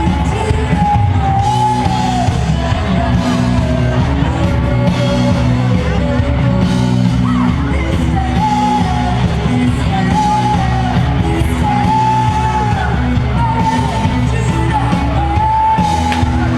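Live band playing loud rock music with singing, a held melody line wavering over a steady bass and drums.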